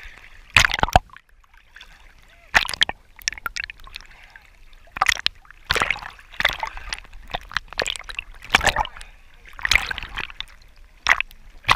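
Small sea waves splashing and sloshing at the surface right against the camera, in irregular loud splashes every second or two over a low wash.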